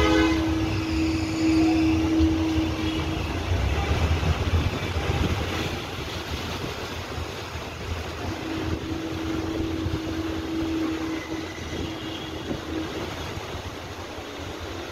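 Floodwater rushing across a road in a steady wash, with a low rumble that is louder for the first five seconds or so. A steady hum sounds over it at the start and again from about eight to thirteen seconds in.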